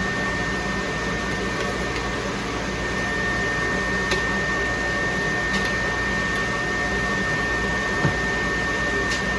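Steady machine hum with a thin, high, constant whine and a few faint ticks: the sound of a running motor.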